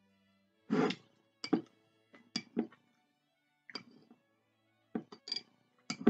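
A metal utensil knocking and clinking against a glass jar of apricot jam while jam is scooped out: short, sharp clinks in irregular clusters. Quiet background music plays underneath.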